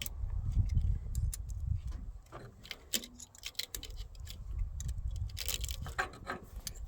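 Scattered metallic clicks and clinks of hand tools working a battery cable terminal as it is tightened onto the cable, over a steady low rumble.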